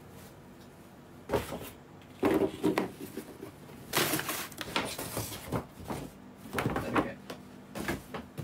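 Handling noise from gift boxes and packaging being moved and rummaged through: several short bursts of rustling with soft knocks, a second or so apart.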